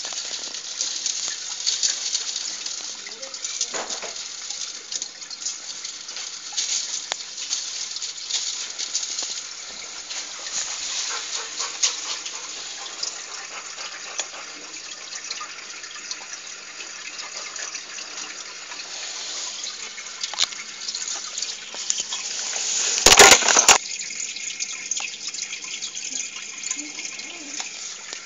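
Aquarium water splashing and trickling steadily, the sound of the tank's water circulation or aeration. A brief burst of loud knocks about five seconds before the end.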